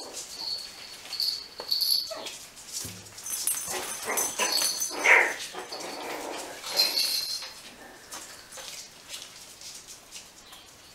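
Puppies at play, giving short yips and whimpers among scattered clicks and knocks. The sounds are busiest in the first half and thin out over the last few seconds.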